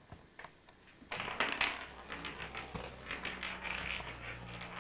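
Faint rustling and light clicking over a low steady hum, starting about a second in.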